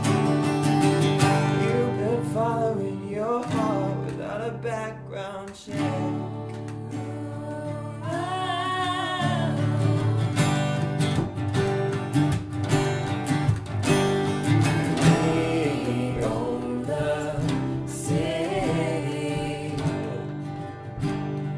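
Acoustic guitars strumming chords while voices sing a folk-rock song. There is a brief break about six seconds in, and a long wavering sung note a couple of seconds later.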